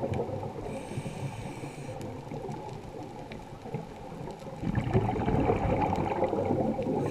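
Scuba diver breathing through a regulator underwater: exhaled bubbles gurgling at the start, a short hiss of inhaled air about a second in, then a longer stretch of exhaled bubbles from about five seconds in.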